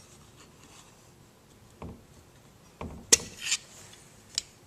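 A few light knocks and metal clinks as the oil tubes are worked loose and slid out of an automatic transmission: a dull knock about two seconds in, a sharp clink near three seconds, and a small click near the end.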